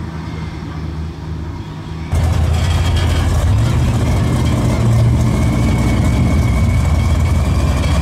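Boosted pickup truck's V8 engine idling steadily at the line, turning much louder and closer from about two seconds in.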